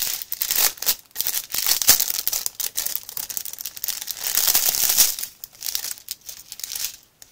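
Clear plastic wrapping crinkling as it is pulled off and handled around a bundle of small packets of diamond painting drills, in quick crackling bursts that thin out over the last couple of seconds.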